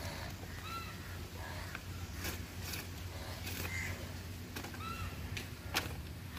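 Ripe jackfruit being pulled apart by hand, the bulbs tearing from the rind with a few sharp snaps. An animal calls twice with short arched cries, about a second in and again near five seconds, over a steady low hum.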